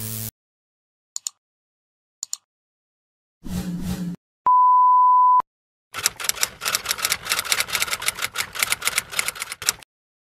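Typewriter typing sound effect: two isolated key clicks, a short low burst, a steady one-second beep, then about four seconds of rapid key clacking that stops abruptly near the end.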